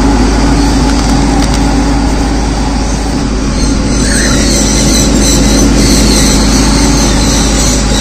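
Loud, steady traffic noise with a running vehicle engine's hum.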